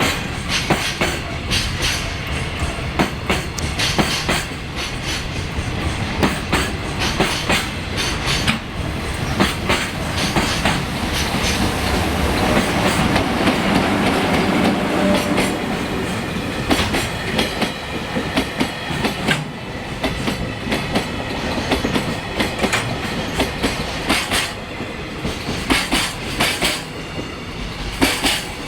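Train passing, its wheels clicking steadily over rail joints, louder for a few seconds about halfway through: new Seibu 30000 series cars being hauled as a freight delivery.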